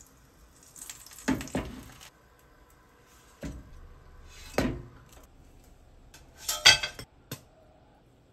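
Scattered knocks and clinks of kitchen utensils and a small square frying pan as bread is toasted in it and handled. The loudest is a quick cluster of clinks, like dishes and cutlery, about six and a half seconds in.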